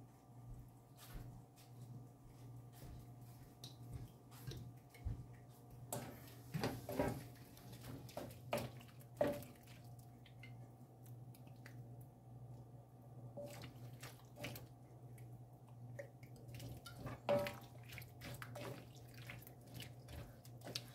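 Wooden spoon stirring shrimp and ketchup in a metal wok: faint, scattered taps and scrapes over a steady low hum.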